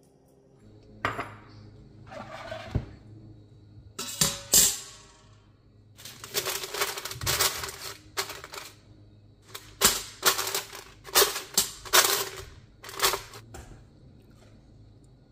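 A metal trivet clanks twice into a stainless-steel Instant Pot inner pot about four seconds in. Parchment paper follows, rustling and crinkling as it is pressed into the pot, with several sharp crackles.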